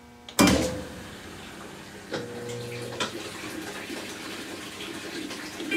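Washing machine filling: a sharp knock as its water inlet valve opens, then a steady rush of water into the tub, with a smaller knock and a click partway through. Right at the end comes another sharp bang, water hammer in the supply pipes as the solenoid valve shuts the water off abruptly.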